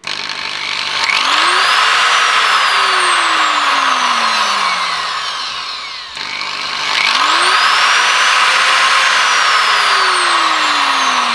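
180 mm angle grinder switched on through a soft-start module: the motor whine rises over about a second and runs at speed, sags about six seconds in, then spins up again. The owner rejects this soft start as working poorly.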